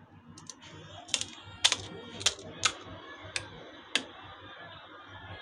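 A run of about seven sharp clicks and taps, a few tenths of a second to half a second apart, from hands handling the food and utensils while serving pani puri.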